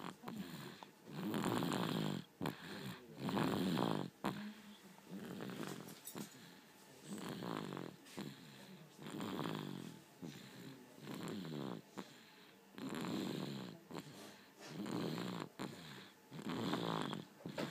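A sleeping baby snoring loudly, sounding like a tractor: a rough pitched snore on each breath, about one every one and a half to two seconds.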